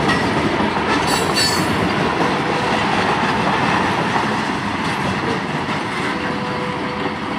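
Freight train of tank cars rolling past, a steady rumble and clatter of steel wheels on the rails, with a brief high wheel squeal about a second in.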